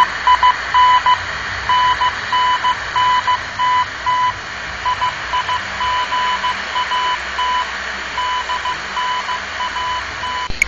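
Shortwave radio receiving a Morse code signal: a single high beep keyed on and off in irregular short and long pulses over steady static hiss. The beeping stops near the end.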